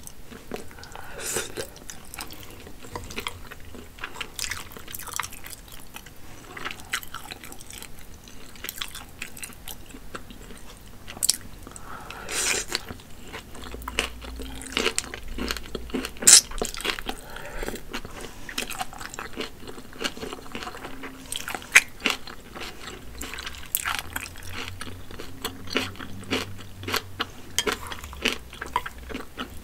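Close-miked eating of wide, saucy pulled noodles: steady wet chewing and mouth clicks, with a longer slurp about twelve seconds in as a noodle strand is sucked in, and a few sharp louder clicks here and there.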